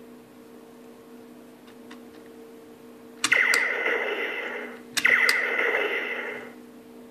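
Electronic Bumblebee robot toy's arm cannon firing its blaster sound effect twice, each started by a sharp click and running about a second and a half, with falling zapping tones. A faint steady hum lies underneath.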